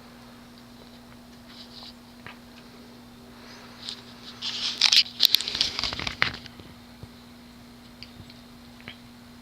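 Hunter Colonial II ceiling fan's spinner motor running on high speed with a steady, not obnoxiously loud hum, typical of spinner-motor Hunters. From about four and a half to six and a half seconds in, a loud burst of rustling and clicking sounds over it.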